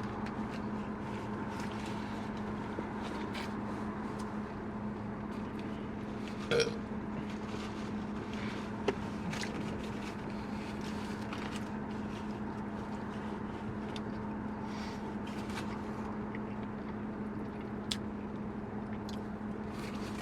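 Steady hum of a car interior with a constant low drone, scattered small clicks and rustles, and one short, loud sound about six and a half seconds in.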